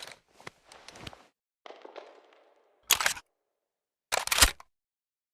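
Remington 7600 pump-action rifle being handled and its action worked: faint clicks, then two sharp metallic clacks as the slide is pumped back and forward to chamber a round, about one and a half seconds apart.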